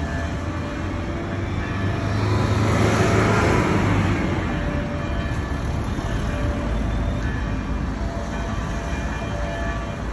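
City street traffic noise, a steady low rumble with a car passing close by about three seconds in.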